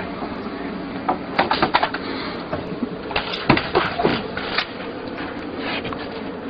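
BMX bike clattering across a wooden deck, then a sharp crash about three and a half seconds in as bike and rider hit the concrete face-first, followed by a short run of further clattering.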